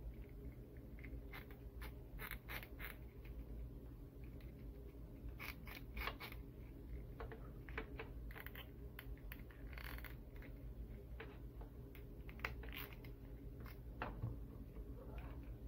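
Faint, irregular clicks and scrapes of hands handling and bending the joints of a plastic action figure, over a steady low hum.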